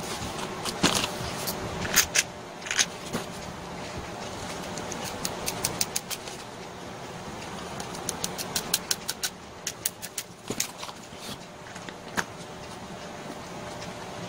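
Hand assembly of an angle grinder's plastic housing and rear cover: irregular sharp clicks and knocks as the parts are pressed together, with quick runs of small clicks around midway and again later as a hand screwdriver works the cover screws.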